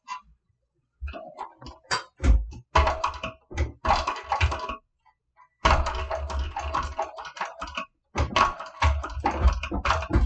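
TechSew 2750 Pro walking-foot industrial sewing machine top-stitching a folded leather tab onto a zipper end. It runs in several bursts of rapid needle clicking over a low motor hum, stopping briefly between them.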